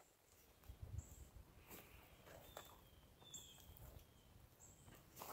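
Near silence in winter woods: faint, short, high bird calls repeating about once a second, with a couple of falling notes in the middle, a few soft clicks or rustles and low rumbles.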